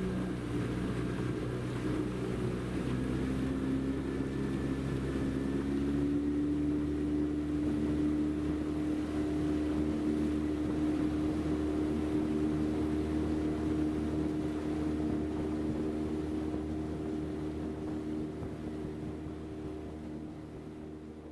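Boat motor running. Its pitch rises as it speeds up a few seconds in, then holds steady and fades out near the end.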